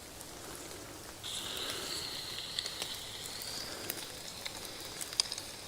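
Rain pattering, with scattered small drop ticks and a steady high hiss that sets in about a second in.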